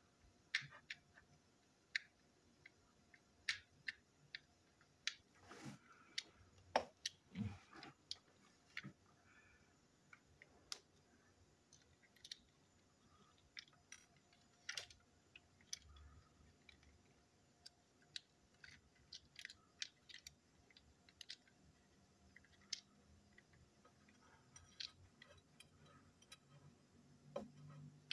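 Faint, irregular clicks and taps of small plastic toy-locomotive parts being handled, fitted together and worked with a small screwdriver, with a few heavier knocks about six to eight seconds in.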